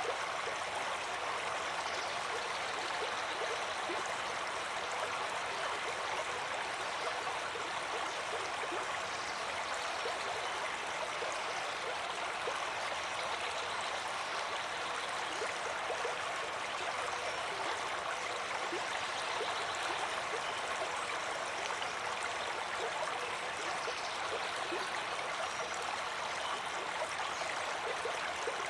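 Flowing stream water, a steady babbling and trickling rush with no change through the stretch.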